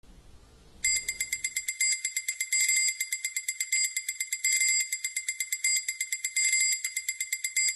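A pair of small brass hand cymbals struck in a fast, steady rhythm, about six bright ringing strokes a second, starting about a second in.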